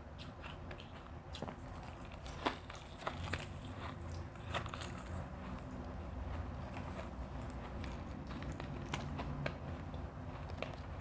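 Refrozen crushed ice bitten and chewed close to the microphone: a run of irregular sharp crunches over a low chewing rumble, the loudest crunch about two and a half seconds in.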